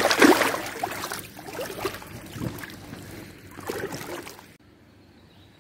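Water splashing as a mirror carp is released from a floating sling and kicks away, followed by a few irregular splashes and sloshes. The sound cuts out suddenly about four and a half seconds in.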